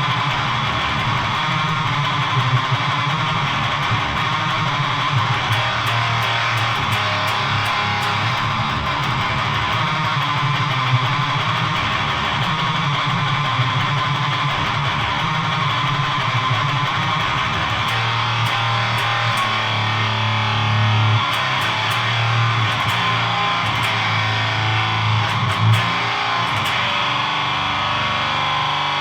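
Electric guitar playing heavy riffs through an HM-2-style distortion pedal and a tube amp, with the heavily saturated, buzzing "chainsaw" tone of Swedish death metal.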